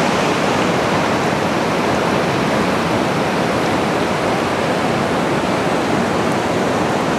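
Yellowstone River rushing over boulder rapids: a loud, steady rush of whitewater that stays the same throughout.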